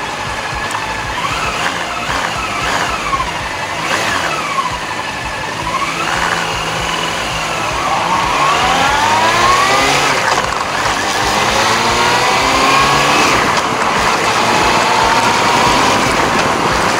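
Honda CB400 Super Four's inline-four engine under way, its pitch rising and falling repeatedly as it is revved through the gears, with several rising sweeps of acceleration partway through.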